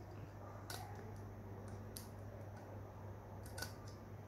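Small screwdriver tightening the screw that clamps a cutting disc onto a mini rotary tool's mandrel: a few faint metal clicks and ticks, a cluster of them near the end, over a low steady hum.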